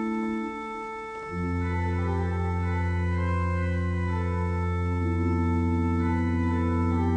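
Pipe organ playing slow, held chords. A deep pedal bass note comes in about a second in, and the chords change every second or two.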